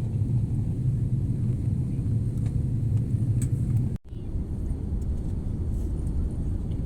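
Steady low rumble of a vehicle heard from inside it, cut off abruptly about four seconds in and resuming at once.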